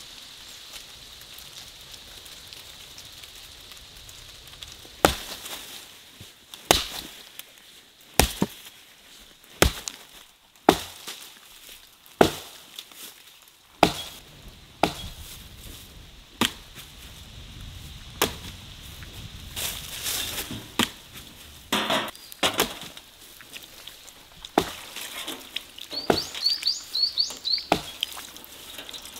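Dead wood being chopped and broken up: a series of sharp woody cracks about every one to two seconds, starting about five seconds in. Near the end, water splashes and trickles as a fish is rinsed over a metal tray.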